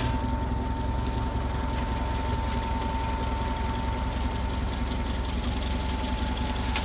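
Tractor engine running steadily, with a thin steady whine over its low drone.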